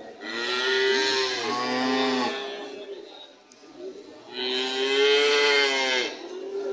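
Cattle mooing: two long moos, each about two seconds, a couple of seconds apart.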